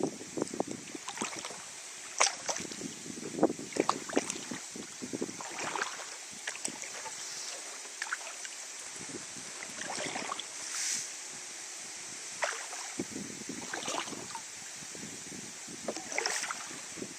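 Kayak paddle strokes: water splashing and dripping off the blades in short, irregular bursts, over a steady high hiss.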